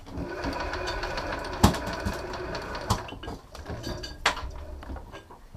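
Electric bandit fishing reel's motor whining steadily for about three seconds, then dropping away, with a few sharp knocks. The loudest knock comes about one and a half seconds in.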